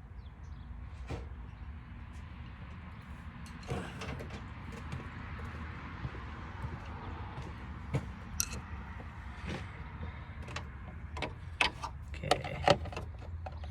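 Scattered clicks and knocks of hand tools on metal and plastic over a steady low rumble, with a run of sharper clicks near the end.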